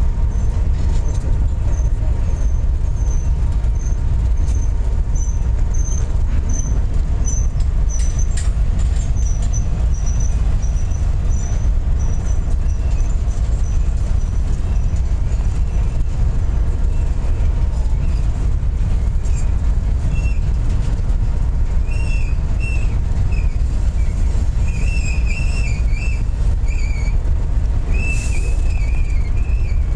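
Intermodal freight train's well cars rolling past at close range: a steady low rumble of wheels on rail, with thin high-pitched squeals coming and going.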